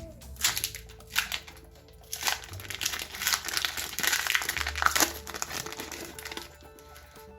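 Foil booster-pack wrapper being torn open and crinkled: a few short crackles, then a dense run of crinkling from about two seconds in that dies away near the end.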